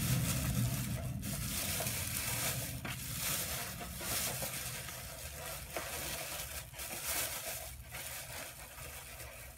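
White plastic takeout bag crinkling and rustling as it is handled and searched through, growing quieter toward the end.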